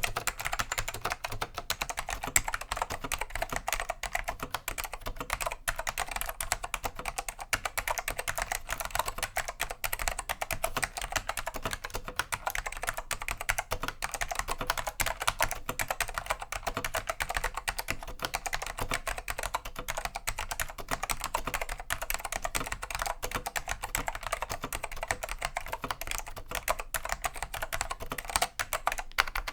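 Steady, fast typing on a Dell AT101 keyboard with 'pine' Alps SKCM Black tactile switches, whose slitted top housings cushion the upstroke. The switches are cleaned and unlubricated, giving a continuous patter of crisp key clicks.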